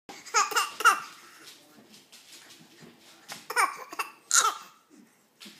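A baby fake-coughing: short, voiced coughs with a falling pitch, three in quick succession near the start and a few more about three and a half seconds in.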